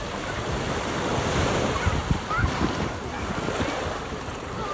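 Sea surf washing in at a swimming beach, with wind buffeting the microphone.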